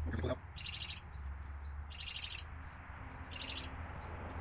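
A short, rapidly pulsed chirp repeated about every second and a half, three times, over a steady low hum, with a brief rustle right at the start.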